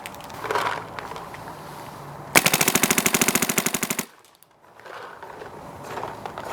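Ripper Victory paintball marker with a VIS electropneumatic engine firing a rapid string of shots, about a second and a half of evenly spaced pops, starting a little over two seconds in.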